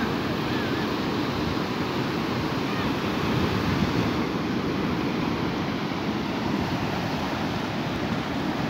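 Atlantic surf breaking on a sandy beach: a steady, rushing wash of waves.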